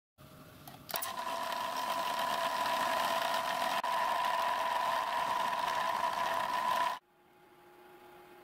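Milling machine spindle driving an end mill into a metal pump-body casting: a steady whine over the hiss of the cut, starting about a second in and cutting off suddenly about seven seconds in, after which only a faint hum remains.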